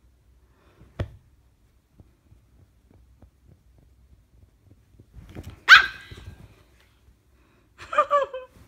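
Pomeranian puppy barking: one sharp, high yap a little past halfway, then a quick run of yaps near the end.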